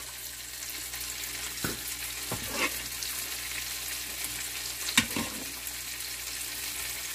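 Steady sizzling hiss of food frying in a pan, with a few light knocks of a utensil against dishware about two seconds in, and again at about five seconds.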